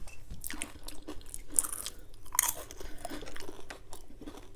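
Close-up chewing and crunching of potato chips: irregular crisp crunches, one every half second or so.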